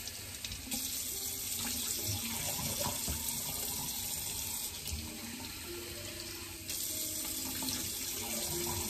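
Water running from a sink tap in a steady hissing stream while a face is washed, its sound shifting a few times as the flow is interrupted and resumes.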